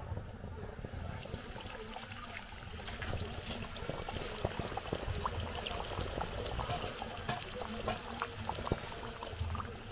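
Battered plantain fish pie frying in hot groundnut oil in an aluminium pan: steady sizzling dotted with small crackles and pops, which come more often from about three seconds in.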